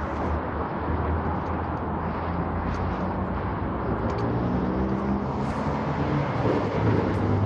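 Light-rail train running, heard from inside the car: a steady low rumble and rushing wheel-and-rail noise. A pitched motor tone comes in over the rumble during the second half.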